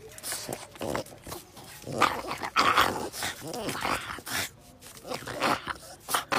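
French bulldog vocalizing in a string of short calls that bend up and down in pitch, loudest in the middle.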